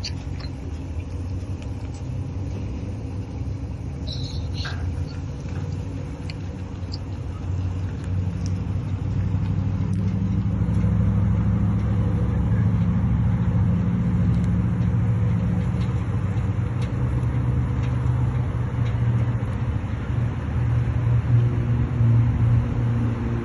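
Vehicle driving on the road, a steady low rumble of engine and road noise that grows louder about ten seconds in.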